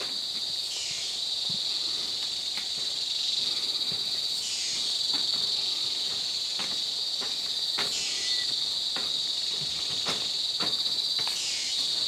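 Dense chorus of tropical rainforest insects buzzing steadily at a high pitch, with a call that sweeps downward about every three to four seconds. Scattered footsteps knock on a wooden boardwalk.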